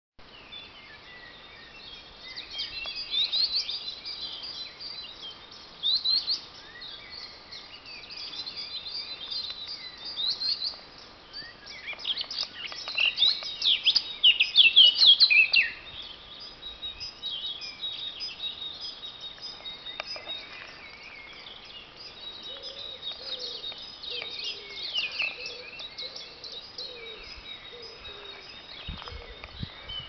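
Several woodland songbirds singing at once in a spring morning chorus, many overlapping high chirps and trills, with a loud burst of rapid notes about twelve to sixteen seconds in. A few low thumps near the end.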